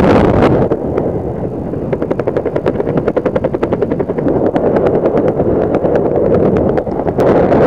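Freefall wind rushing over a skydiver's helmet-camera microphone eases about a second in and gives way to a rapid, even fluttering of parachute fabric as the canopy opens. The rushing wind comes back near the end.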